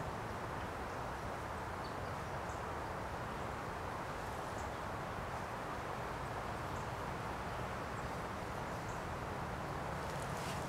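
Steady outdoor background noise, an even hiss with a low hum under it, with faint, brief high-pitched ticks every second or two.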